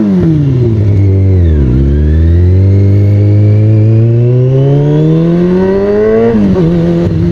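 2003 Kawasaki ZX-6R inline-four running loud through an aftermarket MotoGP-style exhaust under way. The revs fall off, then climb steadily for about four seconds under acceleration, then drop sharply at a gear change about six seconds in and hold steady.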